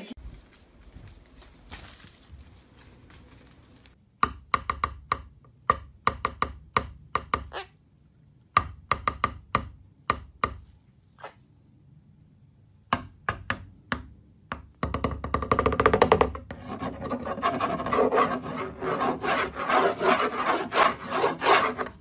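Scraping and rasping from a sulphur-crested cockatoo: quiet for the first few seconds, then bursts of short, sharp rasping strokes, and over the last several seconds a dense, continuous scraping that is the loudest part.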